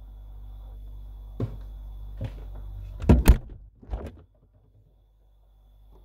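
Fridge door being swung shut: a couple of light knocks, then two loud thuds about three seconds in and a softer thump a second later. A faint steady hum under it drops away after the last thump.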